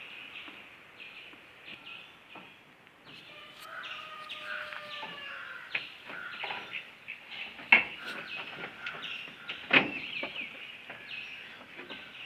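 Farmyard birds, chickens among them, chirping and calling in many short overlapping calls, with a few longer gliding calls. Two sharp knocks stand out, one past the middle and one about three-quarters through.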